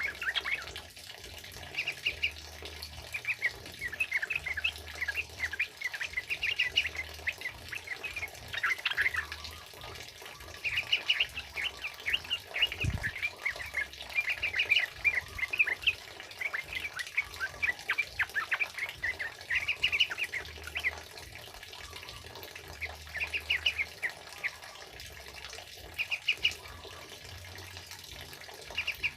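Yellow-vented bulbuls chattering in quick bursts of short notes, their rapid 'ropelan' song, over the steady hiss of heavy rain. A brief low thump comes near the middle.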